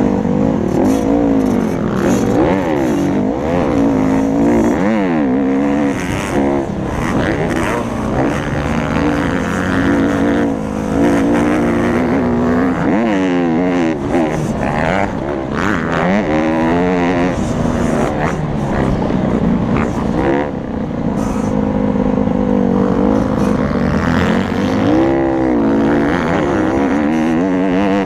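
Honda CRF150R's four-stroke single-cylinder engine under race riding, revving hard and dropping back over and over, its pitch climbing and falling every second or two.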